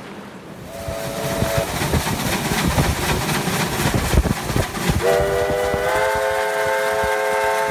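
Steam locomotive No. 3016 working past under steam. A short two-note whistle toot comes about a second in, then the clatter and noise of the engine working, then a long whistle blast from about five seconds in whose pitch steps up slightly a second later.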